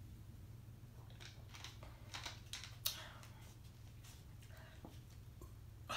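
Faint clicks and crackles of a plastic Sprite bottle being drunk from and handled, with one sharper click about three seconds in.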